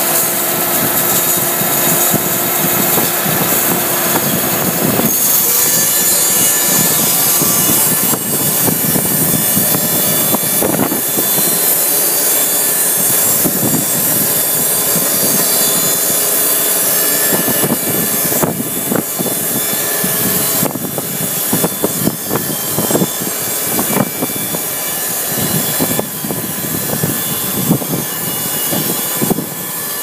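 Electric band sawmill with an 11 kW main motor running its blade through a large log, a continuous loud rasping whine of the band saw cutting wood. The steady tones in the running note stop about five seconds in, and the sound turns more uneven in the second half.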